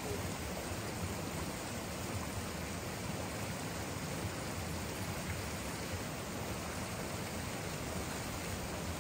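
Steady rushing of a stream of running water, even and unbroken.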